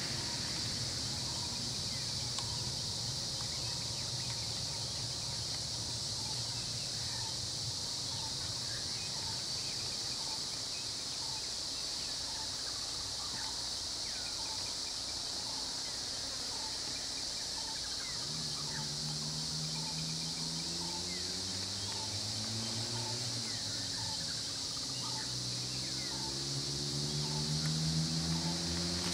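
Steady high-pitched drone of forest insects, with a bird repeating a short call roughly once a second. From about two-thirds of the way through, vehicle engines run and rise in pitch as they pick up speed, loudest near the end.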